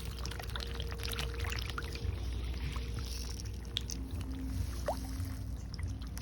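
Catfish splashing and churning at the water surface as they take feed, a burst of irregular splashes thickest in the first two seconds, over a steady low rumble and a faint hum.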